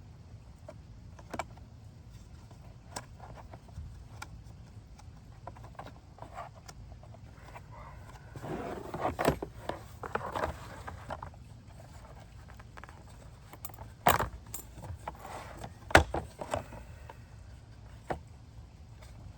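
Small hard objects being handled during bench work: scattered light clicks and clinks, a busier stretch of clattering and rustling midway, and two sharp knocks, the loudest sounds, in the second half.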